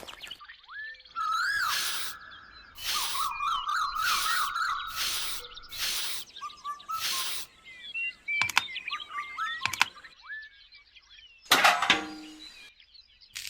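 Small birds chirping in short, rapid calls, broken by several separate bursts of noise, each lasting up to about a second.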